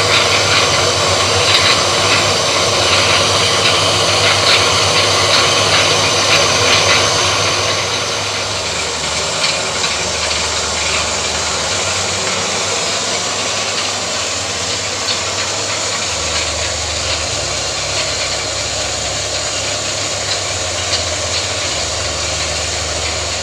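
Belt-driven plastic shredder with an electric motor running steadily, with scattered light clicks as plastic sheet is fed into it; the noise gets a little quieter about eight seconds in.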